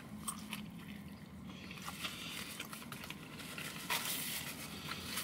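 A person chewing a mouthful of cheeseburger, making faint soft clicking mouth sounds over a steady low hum.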